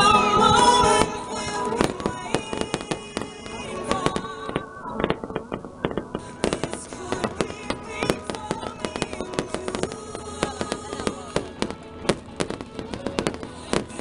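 Aerial fireworks going off in rapid, irregular bangs and crackles over music. The music is loud for about the first second, then continues more quietly under the explosions, which grow denser about halfway through.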